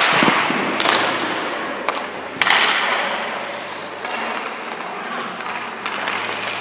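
Hockey goalie's skate blades and leg pads scraping and sliding on ice during crease movement: a sharp scrape at the start, another just under a second in and a louder one about two and a half seconds in, each trailing off, then lighter skating scrapes.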